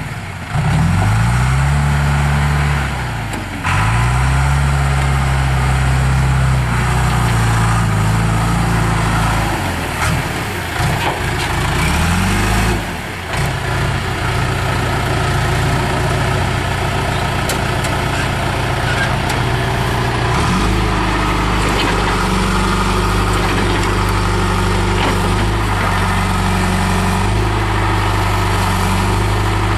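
The diesel engine of a John Deere 310E backhoe loader runs, its speed swinging down and back up several times, then holds steady at a new pitch from about two-thirds of the way in.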